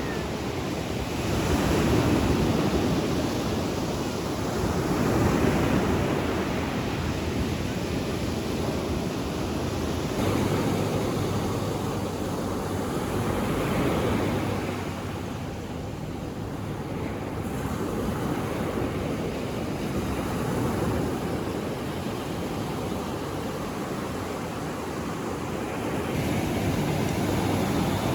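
Ocean surf breaking and washing up the shore, swelling and easing every few seconds, with some wind.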